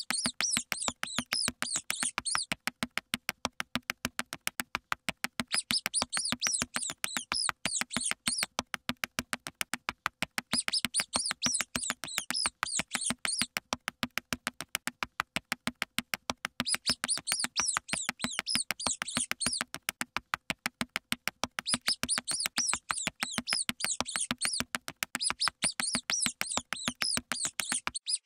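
Looped mouse-squeak sound effect: high, chirpy squeaking in bursts of two to three seconds, recurring about every five seconds, over a fast, even clicking patter.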